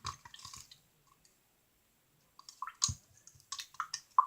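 Glue-and-borax slime being stirred in a cup: sticky clicks and squelches, which stop for about a second and a half in the middle and then return with a dull knock.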